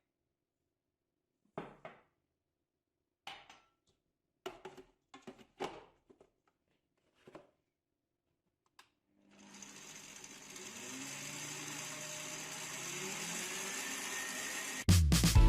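A few separate knocks and clicks of kitchen utensils, then a small electric kitchen appliance motor, such as a mixer or food processor, starts and runs steadily with its pitch slowly rising. Loud music cuts in at the very end.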